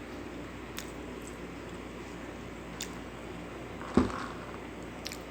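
Close-miked chewing of pizza with a few faint mouth clicks over a steady low background hum, and one sharp thump about four seconds in.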